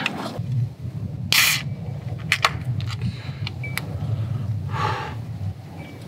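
Drink can and soft cooler bag being handled: rustling and a few light clicks, with a short hiss about a second in, over a low steady rumble.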